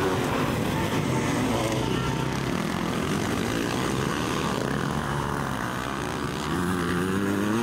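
Motocross bike engines revving hard, their pitch rising and falling as the riders accelerate and shift, with a rise in pitch near the end.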